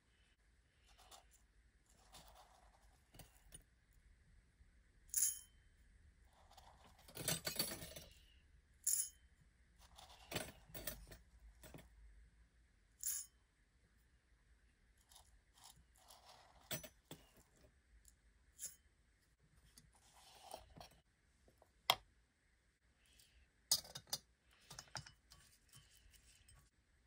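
Light clicks, clinks and rustles of miniature kitchenware: a wooden canister lid being handled, rice grains tipped into a tiny aluminium pot with a longer rustle about a third of the way in, and fingers stirring the grains against the metal.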